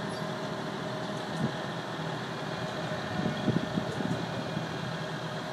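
Steady drone of an engine running at idle, with a few soft low thumps about a second and a half in and again between about three and four seconds.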